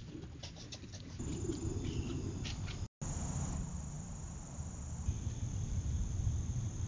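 Insects trilling steadily as a thin high tone over a low, steady rumble, with a few light rustling clicks in the first second. The sound drops out briefly about three seconds in.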